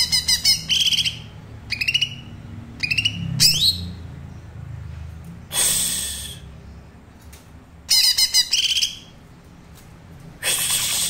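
Cucak ijo (green leafbird) singing in short bursts of rapid, stuttering high chirps and quick glides, a young bird practising its thin 'trotol' song. Two longer harsh hissing bursts come about halfway and near the end, over a steady low hum.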